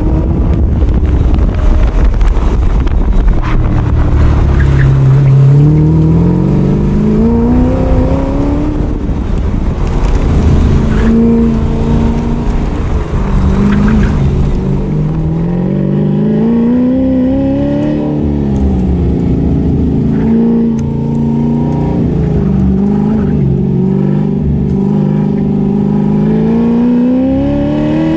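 Car engine on an autocross run, revving up hard and easing off again and again, its pitch climbing and falling every few seconds.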